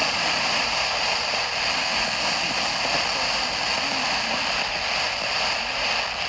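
Steady hiss of radio static from a weather radio receiver with no program audio coming through.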